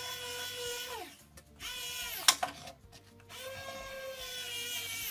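Small pen-style electric screwdriver running in three short whining bursts as screws are driven into the plastic model truck cab. The second burst drops in pitch and ends in a sharp click about two seconds in; the others hold a steady pitch and wind down as the motor stops.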